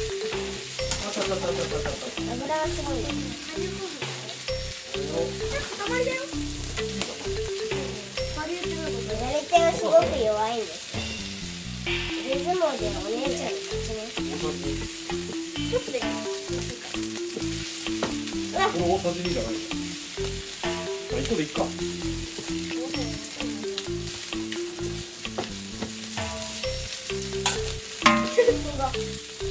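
Onions and mushrooms sautéing in a frying pan, sizzling steadily while being stirred, with occasional scrapes and clicks. The loudest clicks come about ten seconds in and near the end.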